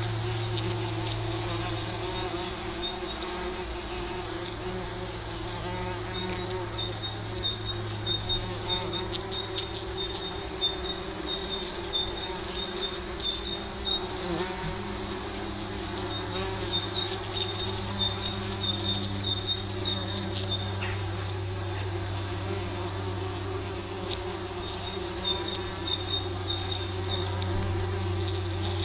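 Bumblebees buzzing as they crawl and take off at the entrance of a commercial bumblebee hive, a low drone that rises and falls. Over it, a short high chirp repeats about twice a second in several long runs, the loudest sound.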